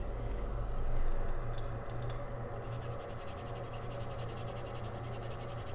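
Faint scratching and rubbing of soldering tools working the CPU pads of an iPhone XR logic board, over a steady low hum from the bench equipment. A fine rapid buzz joins about halfway through.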